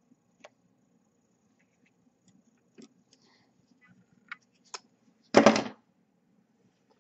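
Faint small clicks of hands handling a small brushless drone motor and hand tools, then one short, loud rush of noise about five and a half seconds in.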